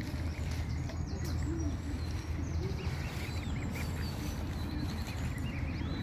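Pond ambience: a steady low rumble with a few soft duck calls and scattered high, quick bird chirps.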